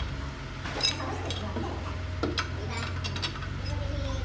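Scattered light metallic clinks of tools or metal parts being handled, over a steady low machine hum.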